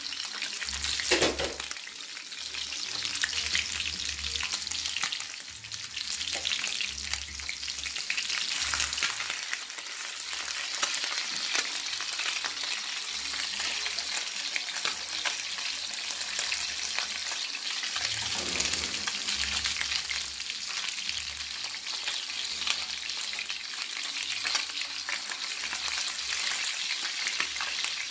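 Small whole sprat fish deep-frying in oil in a skillet, the oil sizzling and crackling steadily. A fork turning the fish in the pan makes a brief clink about a second in.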